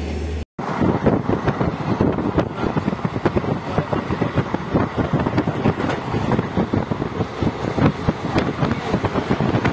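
Indian Railways passenger train running at speed, heard from inside the carriage at an open barred window: a dense, irregular clatter of wheels on the rails and rattling of the coach. It starts after a brief break about half a second in.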